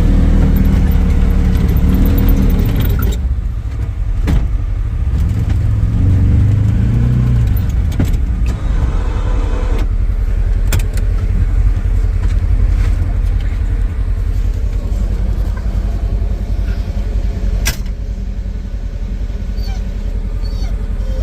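A vehicle engine running steadily with a deep, pulsing rumble; its note rises briefly near the start and again around six seconds in. A few brief sharp knocks or clicks cut through it.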